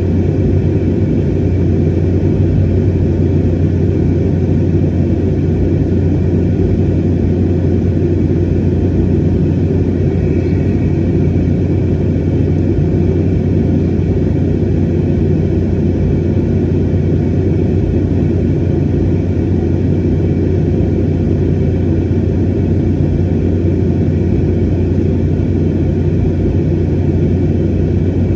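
Steady rumble of an airliner's jet engines and airflow heard from inside the passenger cabin in flight, with a low hum under it and a faint steady whine higher up.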